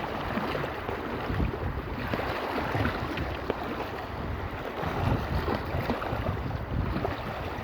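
Wind gusting on the microphone, with the wash of waves on the shore underneath.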